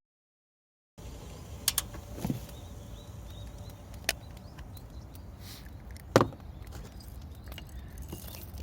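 After a second of dead silence, a few sharp knocks and cracks over a steady low background; the loudest comes about six seconds in.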